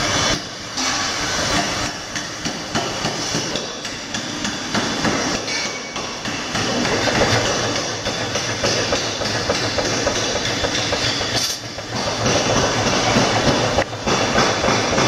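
Mechanical power hammers in a blacksmith's forge shop running, a loud continuous fast metallic clatter. There are a few brief dips in it.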